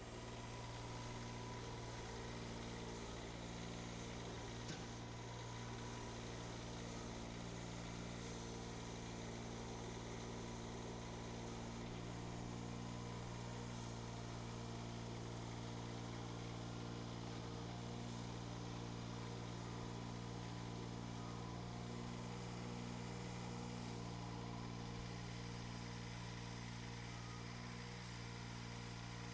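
Kubota D722 three-cylinder diesel engine of a Steiner 430 Max tractor running steadily at an even pitch.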